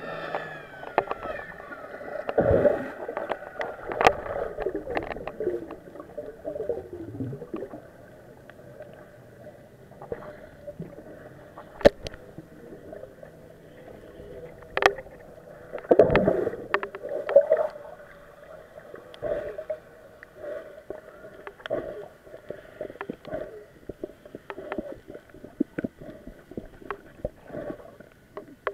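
Muffled underwater sound picked up through a submerged camera's waterproof case: water sloshing and gurgling, with scattered irregular knocks and clicks. A few of the knocks stand out, about two and a half, four, twelve and sixteen seconds in.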